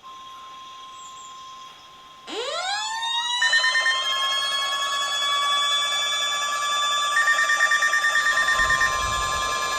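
NOAA Weather Radio's steady 1050 Hz warning alarm tone, with a siren winding up over it about two seconds in and further alarm tones joining a second later; the siren holds its pitch and begins to wind down near the end.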